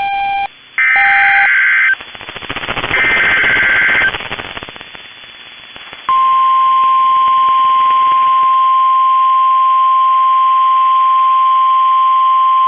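NOAA Weather Radio Emergency Alert System (EAS) header: two short bursts of screechy digital SAME data tones, then a few seconds of radio hiss. About six seconds in, the steady single-pitch 1050 Hz Weather Radio warning alarm tone starts, the signal that a new warning message follows.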